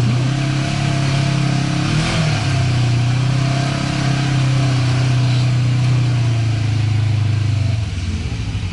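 Polaris RZR 4 900 side-by-side's twin-cylinder engine running steadily on the throttle while driving a dirt trail, heard from the cab. About a second before the end the throttle eases off and the engine note drops.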